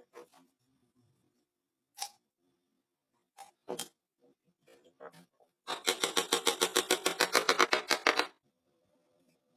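A few scattered knocks and clicks, then a fast, even run of hammer taps on wood, about ten a second, lasting two and a half seconds and stopping abruptly.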